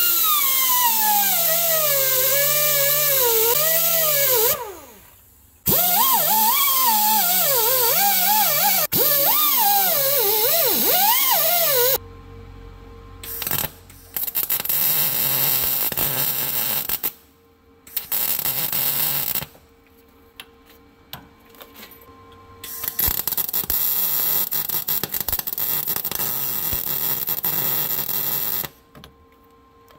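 A hand grinder cleaning up the ends of broken exhaust-manifold studs, its pitch sagging and recovering as it loads up, with one spin-down and restart about four to five seconds in. About twelve seconds in it gives way to a MIG welder crackling in repeated bursts of a few seconds each as nuts are tack-welded onto the broken studs.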